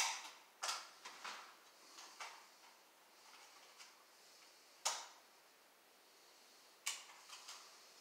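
Faint, irregular plastic clicks and taps from a hard-wired smoke detector being handled as someone tries to open its stuck battery compartment.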